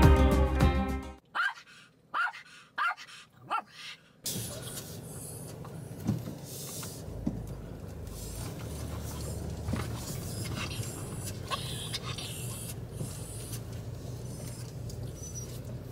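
Small dogs whining with short, high, rising cries, four or five in a row from about a second in. Then a steady car-cabin hum, with a few more short cries now and then.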